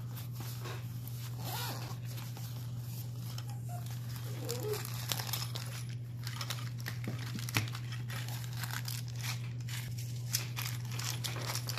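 Hands unpacking a gimbal box: packaging and plastic wrapping rustling and crinkling, with scattered light clicks and taps, over a steady low hum.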